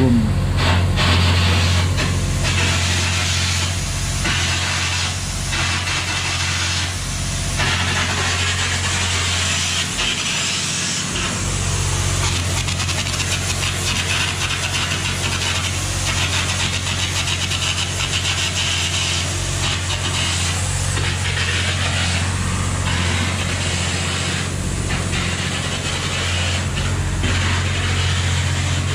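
Hitachi EX3600 mining excavator's 16-cylinder diesel engine running at a steady speed: a deep, even hum with a hiss of rushing air over it.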